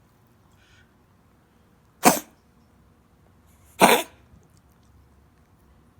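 A pet dog coughing: two short, sharp coughs, the first about two seconds in and the second under two seconds later.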